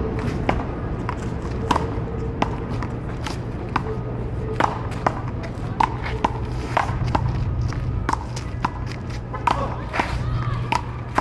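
Paddleball rally: the ball is struck by paddles and bounces off the wall and court in sharp cracks, irregularly about one to two a second, over a steady low hum.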